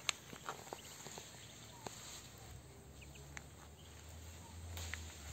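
Faint, scattered clicks of gravel as Muscovy ducklings and a chick peck and step over loose stones, with a low rumble swelling briefly near the end.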